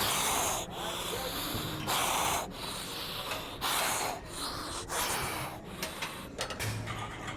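A person breathing hard and forcefully, a loud rushing breath about every one and a half to two seconds, growing weaker near the end.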